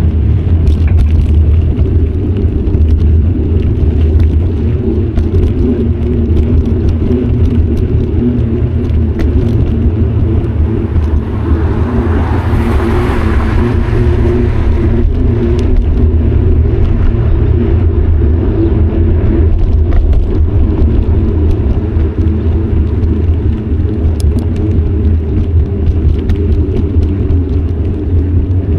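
Steady low rumble of wind and road vibration on a bicycle-mounted action camera while riding, with small rattles and clicks over the pavement. A car passes about twelve seconds in, rising and fading over a few seconds.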